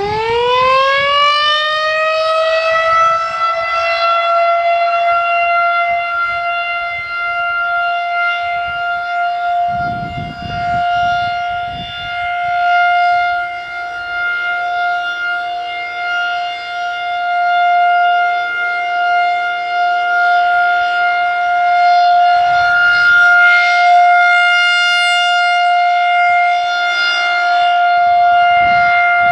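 Federal Signal 2001-SRNB electromechanical warning siren finishing its wind-up in the first second, then sounding a steady single-pitch alert tone with strong overtones.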